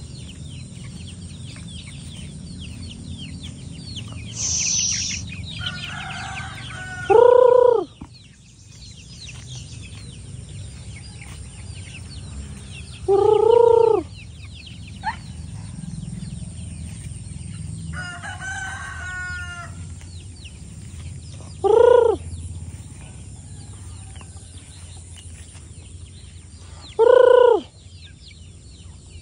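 Free-range village chickens (ayam kampung): a rooster crows four times, each crow about a second long and several seconds apart, with softer clucking in between.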